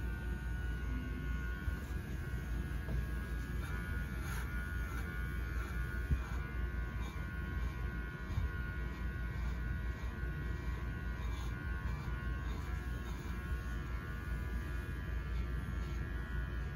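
Electric pet hair clippers running with a steady buzz, with a few faint clicks now and then.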